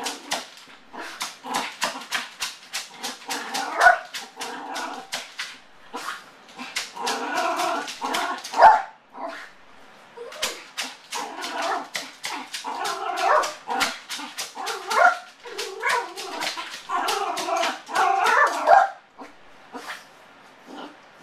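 Yorkshire terrier barking in rapid strings of sharp yips mixed with pitched whining cries, in frantic bouts that die down near the end. This is the distress of a dog with separation anxiety, left alone at the door.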